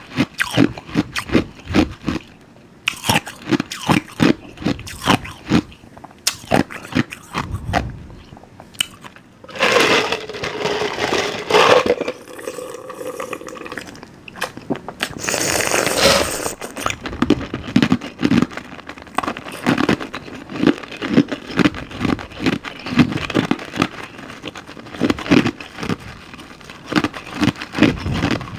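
Close-miked crunching and chewing of something brittle, such as compressed cornstarch or ice, in short sharp bites about two or three a second. Two longer, denser stretches of crunching come about a third of the way and halfway through.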